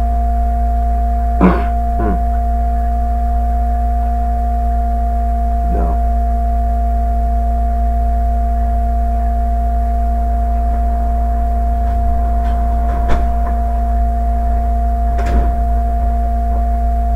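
A steady hum of several fixed tones over a deep low drone, unchanging throughout, with a few faint brief sounds scattered over it.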